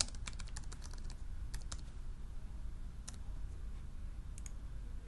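Keys typed on a small laptop keyboard: a quick run of keystrokes for about two seconds, then a few scattered taps.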